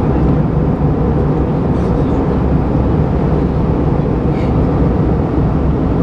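Steady low rumble inside the cabin of an Airbus A320-232 in descent: airflow and its IAE V2500 turbofan engine, heard from a window seat beside the wing.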